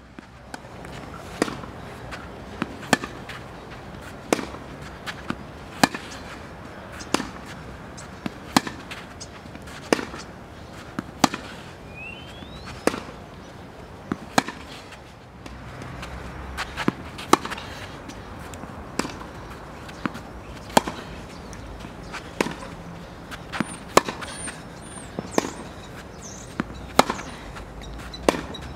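Tennis ball struck with a racket about every one and a half seconds in a steady hitting drill, with fainter knocks of the ball between the strikes.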